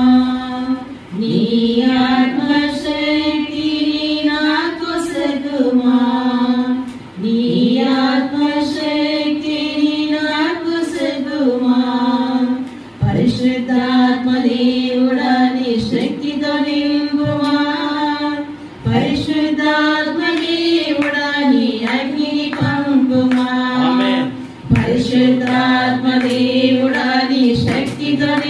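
Women singing a devotional hymn into microphones, one melody of long held notes in phrases broken by brief pauses for breath every few seconds.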